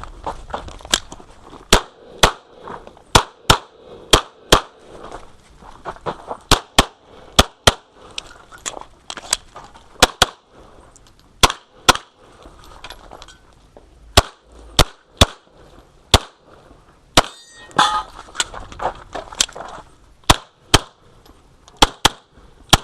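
Pistol shots during a USPSA course of fire: about two dozen sharp, loud reports, mostly in quick pairs with short pauses between strings.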